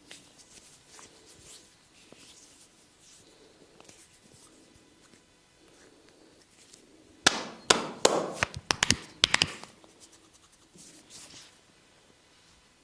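Soft rubbing of a hands-on massage, then a quick run of about ten sharp snaps and slaps over two seconds, a little past the halfway point.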